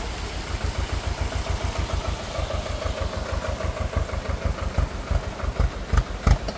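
Small tractor's diesel engine chugging at low revs with an even, low thumping beat as it crawls over loose rock. A single sharp knock near the end.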